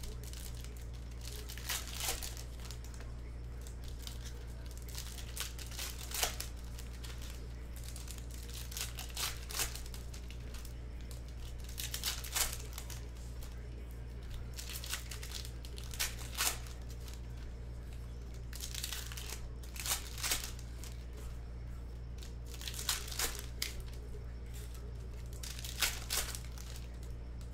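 Foil trading-card pack wrappers being torn open and crinkled by hand, in short crackling bursts every few seconds, over a steady low electrical hum.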